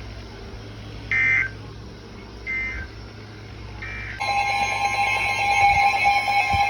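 Emergency Alert System signalling: three short screechy data bursts (SAME end-of-message codes) about a second and a half apart. About four seconds in, the loud steady two-tone EAS attention signal (853 and 960 Hz) starts and holds.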